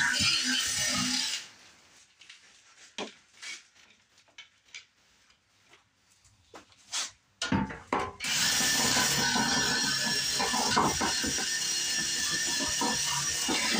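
Music ends about a second in, followed by several seconds of quiet with scattered light clicks and knocks. About halfway through, a handheld power tool, like a drill or rotary tool, starts up and runs steadily and loudly.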